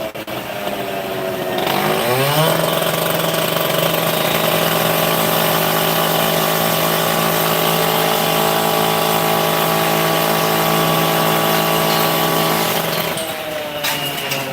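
Gas-powered saw engine revving up about two seconds in and held at a steady high speed for about ten seconds, then dropping in pitch near the end. It is a saw cutting during demolition work, loud.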